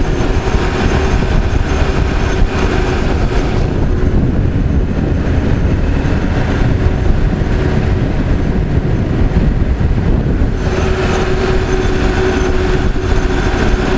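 Caterpillar 416C backhoe's diesel engine running steadily under load while the machine is driven, with a steady whine over the engine. The higher part of the noise eases off about four seconds in and comes back near the end.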